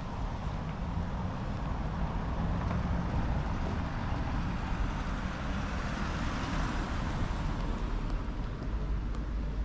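A car passing along a street, its engine and tyre noise swelling and fading about halfway through, over a steady low rumble of traffic.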